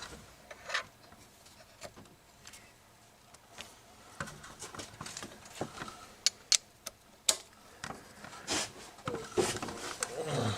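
Scattered sharp metal clicks and knocks, a second or more apart, from a socket and extension being worked down into a spark plug well to loosen the old plug.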